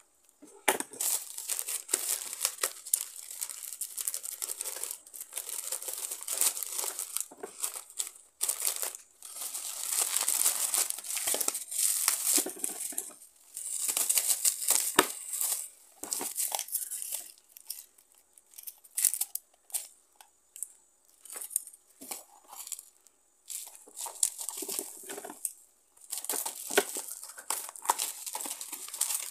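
Plastic packaging crinkling and tearing in repeated bursts with short pauses as a parcel is unwrapped: a plastic mailer bag and bubble wrap around a small cardboard box.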